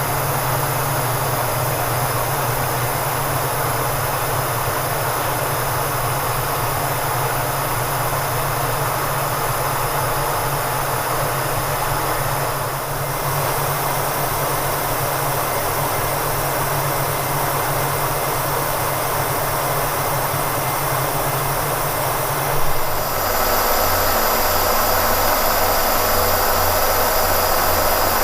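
K&T milling machine running steadily under power, taking a cut with a finishing mill, a dense even machine noise over a low hum. About 23 seconds in the sound changes abruptly to a lower, pulsing hum with more hiss.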